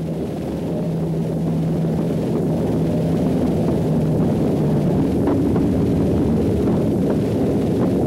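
General Electric 75-ton diesel locomotive running as it approaches and passes, growing louder, its steady engine drone stepping up in pitch about five seconds in.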